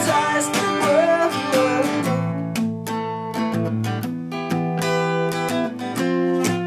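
Acoustic guitar strummed in a steady rhythm, chords ringing. A man's singing voice closes a line over it in the first two seconds, then the guitar plays on alone.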